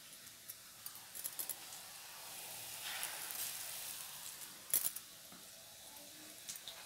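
Hot oil sizzling as a batter-coated boiled egg deep-fries, swelling for a couple of seconds around the middle. There are light clicks before it and a sharp clink just before 5 seconds.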